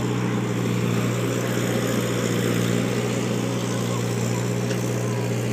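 An engine running steadily at an even pitch, with a constant low hum.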